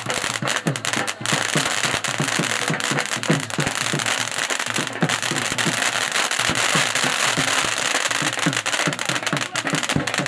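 Fireworks and firecrackers going off in a dense, continuous barrage of cracks and pops, many a second, with deep thumps among them, over music.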